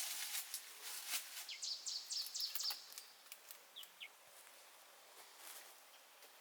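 A bird calls a quick run of about seven short high notes from about a second and a half in, then two brief notes near four seconds. Faint crackling and rustling lies under the first half.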